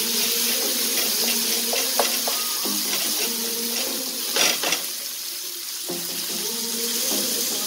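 Onions and tomatoes sizzling in oil in a nonstick frying pan, stirred with a spatula that clicks against the pan a few times. A low steady hum runs underneath.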